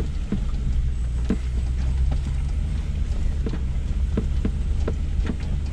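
Lexus GX470's 4.7-litre V8 running at crawling speed, heard from inside the cabin as a steady low hum. Irregular knocks and clunks come from the tyres and suspension working over loose rocks on the trail.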